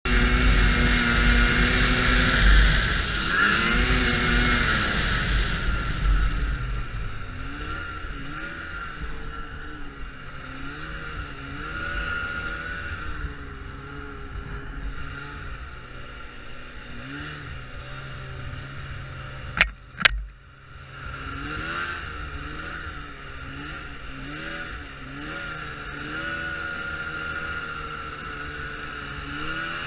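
Ski-Doo Expedition Sport's 550F fan-cooled two-stroke twin engine running as the snowmobile is ridden, its pitch rising and falling again and again with the throttle. It is loudest in the first six seconds, and two sharp knocks come about two-thirds of the way through.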